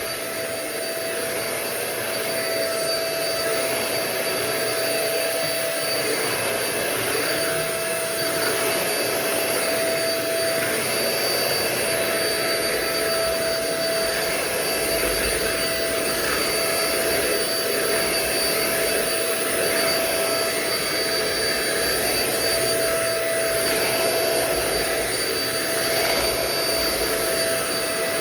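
Euro-Pro Shark bagless stick vacuum (EP600) running steadily, its motor whine holding one pitch, as it is pushed over the floor.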